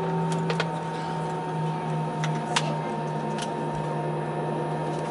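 Steady hum of an airliner cabin while the jet taxis, with a few sharp clicks and ticks, the sharpest about two and a half seconds in.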